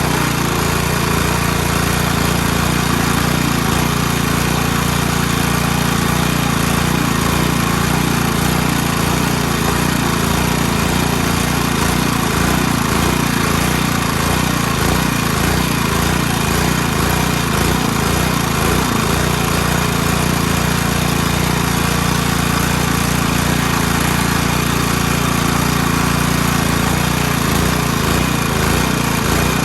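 Small gasoline engine running steadily under load, with a fast rough pulsing in its low end.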